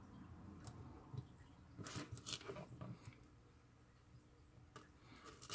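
Faint clicks and scrapes of wire leads being pushed into a solderless breadboard's contacts. They come in a cluster about two seconds in and again near the end.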